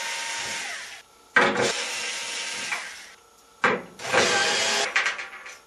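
Cordless screwdriver running in three short bursts, each about a second and a half to two seconds long, backing out the holding screws of a dryer drum baffle.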